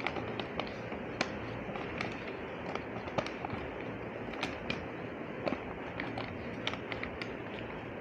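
Sheet of A4 paper crackling and rustling as hands fold it and press its creases, with irregular sharp crackles a few times a second over a steady background hiss.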